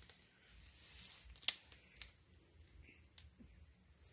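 Steady high-pitched chorus of night insects. Two sharp clicks cut through it about a second and a half and two seconds in; the first is the louder.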